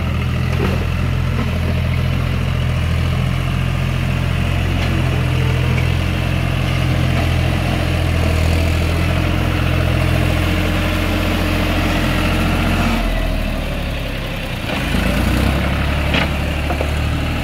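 John Deere tractor's diesel engine running steadily as the tractor pushes dirt with its front dozer blade. The engine note changes briefly near the end, then settles again.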